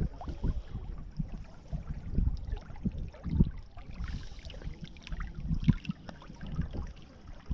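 A cast net being swished in shallow river water at the bank, the water sloshing and splashing in short irregular strokes. Under it runs a low, uneven rumble of wind buffeting the microphone.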